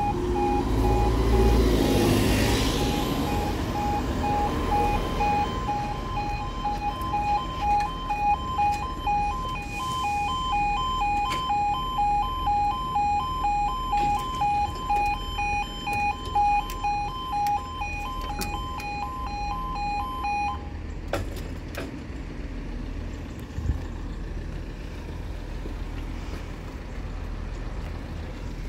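Level crossing warning alarm sounding while the barriers lower: an electronic two-tone alarm that switches back and forth between its two pitches several times a second, then cuts off about 20 seconds in. A bus engine idles close by at the start.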